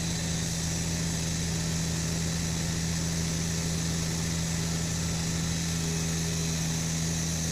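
An engine running steadily at a constant speed, a low even hum with no change in pitch or level.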